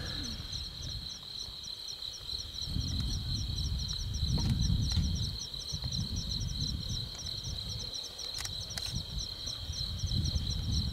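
A steady night chorus of crickets, with a second insect chirping a few times a second. Under it, a lioness tears and chews at a kudu carcass, heard as uneven low rustling and crunching, with a couple of sharp clicks about eight and a half seconds in.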